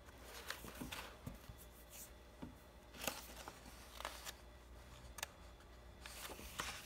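Paper pages of a picture book being handled and turned: several faint rustles and soft flicks.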